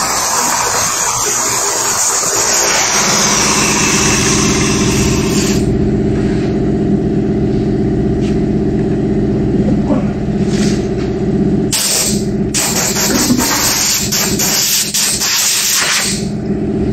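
Air-powered disc sander with a 60-grit disc grinding old paint off a fiberglass Corvette spoiler, a steady hiss that stops about five seconds in, followed by several short bursts. A steady machine hum comes in about three seconds in and keeps going underneath.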